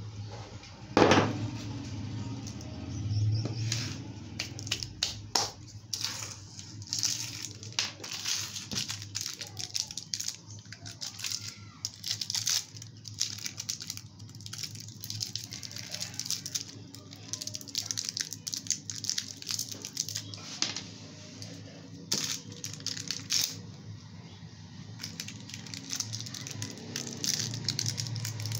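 Plastic candy wrapper crinkling and crackling as fingers open it and pick at crushed hard candy, a long run of short irregular crackles. A single loud knock about a second in.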